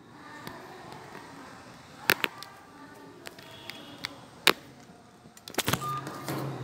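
Handling noise from a phone or tablet being picked up and moved: a few sharp clicks and knocks, a pair about two seconds in, one near the middle and a cluster near the end, over a faint background.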